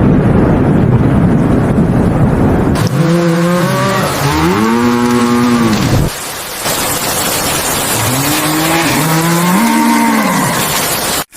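Cattle mooing: long, drawn-out calls that rise and fall in pitch, in two bouts a few seconds apart, over steady rain.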